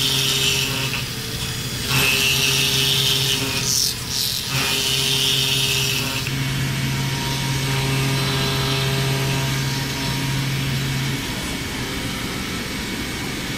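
CNC milling machine cutting a steel crankshaft: a steady machine hum with stretches of high-pitched metal-cutting noise that stop and start. The hum drops out near the end.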